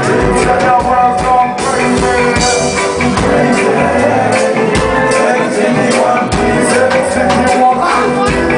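A band playing live, loud, with a steady beat and singing.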